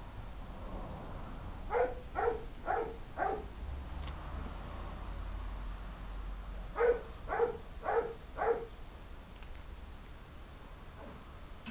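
A dog barking in two bursts of four quick barks, about half a second apart, the second burst some five seconds after the first.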